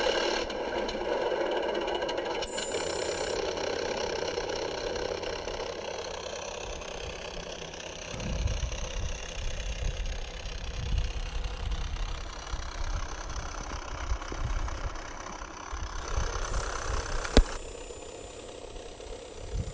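Simulated aircraft engine sound from an RC model's sound card, played through a small piezo speaker: a steady engine note that turns to an uneven, knocking low rumble partway through. A single sharp click near the end.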